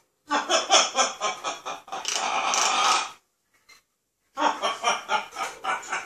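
Blue-and-gold macaw imitating laughter: a quick run of 'ha-ha' pulses, then one long, noisy note about two seconds in. After a pause of about a second it starts a fresh burst of laughing.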